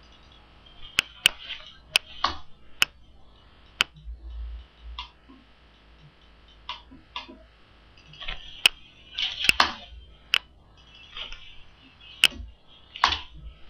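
Computer mouse and keyboard clicks: about fifteen sharp, short clicks at irregular intervals as sketch dimensions are picked and typed in a CAD program.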